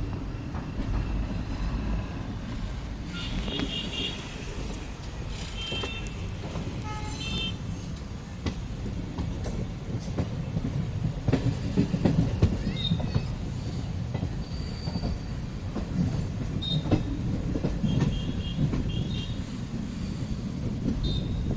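Train pulling into a station: a steady low rumble of wheels on rail with scattered clicks, and short high-pitched metal squeals coming back every few seconds.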